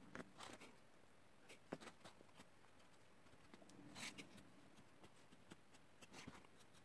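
Faint scratching of a graphite pencil sketching on paper, in short scattered strokes. About four seconds in there is a louder hissing swipe as the sheet is slid and turned on the wooden table.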